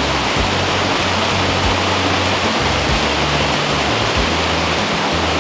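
Steady rushing roar of a waterfall, with background music's low sustained notes changing underneath.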